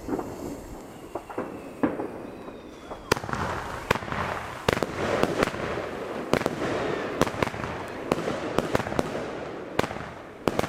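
Klasek Dum Bum F2 salute cake firing its 20 mm shots: a string of sharp bangs starting about two seconds in and coming faster in the second half, with steady noise between them.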